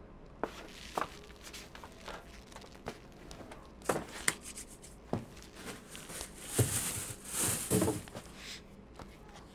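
Quiet, scattered sounds of a person moving about a small room: soft knocks and thumps, with some rustling and a brief hiss a little past halfway.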